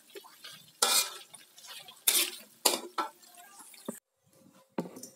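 Metal spatula clanking and scraping against a steel wok while stirring chicken livers and gizzards as they fry, with four sharp clanks over the first four seconds. After a sudden drop to quiet, a couple of knocks come just before the end.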